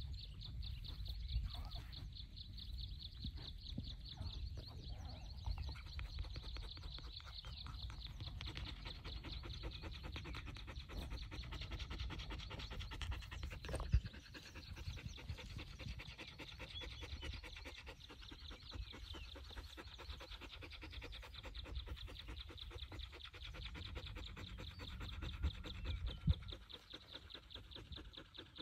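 Dog panting with its mouth open, over a steady high-pitched buzz and a low rumble; one sharp click about halfway through.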